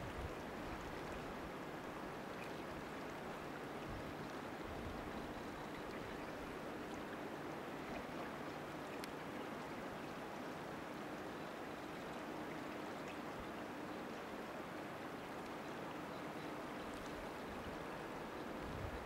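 River water running steadily under a bridge: an even, constant rushing sound.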